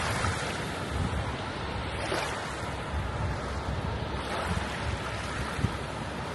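Small waves washing in over sand and reef in shallow water at the shoreline, with a brighter wash about two seconds in. Wind rumbles on the microphone underneath.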